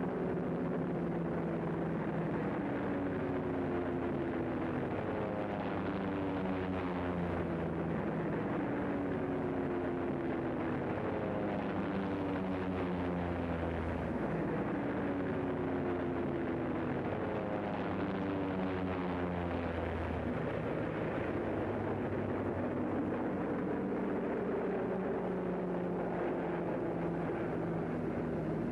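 Four radial piston engines of a B-17 Flying Fortress bomber running steadily as it rolls along the runway, with the engine tones sliding down in pitch again and again.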